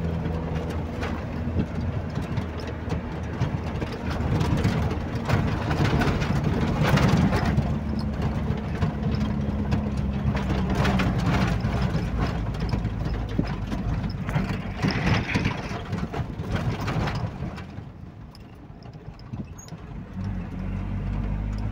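A light truck's engine runs steadily as heard from inside the cab while it drives over desert ground, with frequent knocks and jolts. Near the end the engine note drops away for a few seconds, then comes back.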